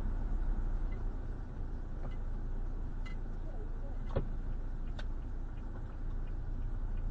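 Steady low rumble of a truck idling, picked up by its dashcam, with a few sharp clicks and knocks, the clearest about four seconds in.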